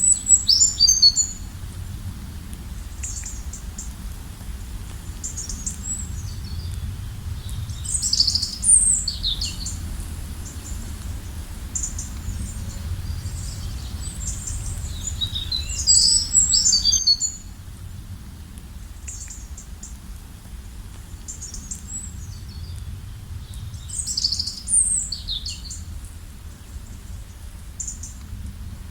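A songbird repeating a short, high, chirping song phrase about every eight seconds over the steady low rush of a river. The bird's phrases are the loudest sounds.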